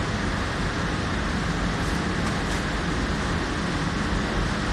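Steady, even rushing noise with no gunshots or other sudden sounds.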